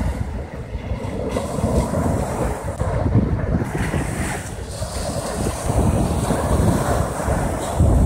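Small waves of the Sea of Azov breaking and washing up a sandy beach, the surf swelling and easing. Strong wind buffets the microphone with a low rumble.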